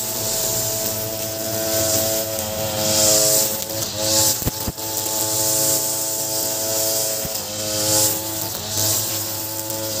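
Ogawa 26cc two-stroke multi-tool brush cutter running at cutting speed, its pitch steady with slight dips now and then, while the spinning 2.2 mm round nylon trimmer line hisses through grass and sandy ground. A couple of sharp ticks come about halfway through.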